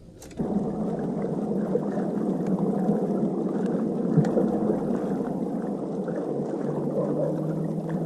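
Water gurgling and sloshing steadily around a bass boat's hull as it moves. A low steady hum sets in near the end.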